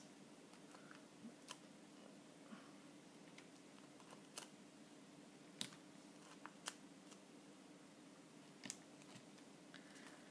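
Near silence with a faint steady hum, broken by scattered small clicks and ticks as hands handle card stock and peel foam adhesive dimensionals from their backing sheet.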